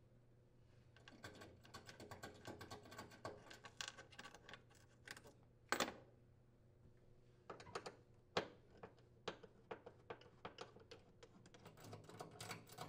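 Faint, rapid clicking and scraping of a screwdriver backing metal mounting bolts out through the wooden cabinet floor, with a few louder sharp clicks as the bolts and washers are handled and set down.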